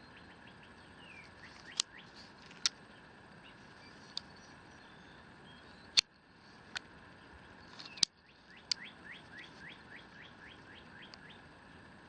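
Sharp clicks and knocks of hand tools being handled, several spread through, the loudest about six and eight seconds in. Behind them a small bird chirps repeatedly, with a quick run of about ten short falling chirps near the end.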